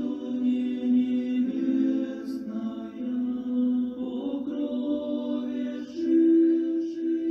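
Background music of slow chanting voices holding long notes, stepping up to a higher note about six seconds in.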